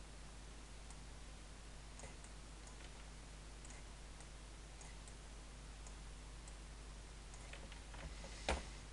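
Faint computer mouse clicks, spaced a second or so apart, over a steady low background hum, with one sharper, louder click near the end.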